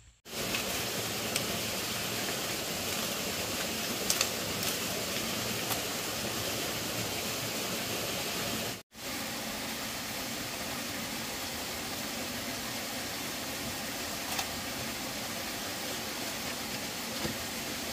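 Steady rushing, hissing noise with a few faint clicks, cut off for an instant about nine seconds in by an edit.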